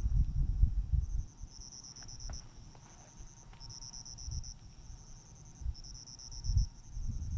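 Crickets chirping: high, pulsed trills about a second long, at two slightly different pitches that take turns. A low rumble comes through in the first second and again near the end.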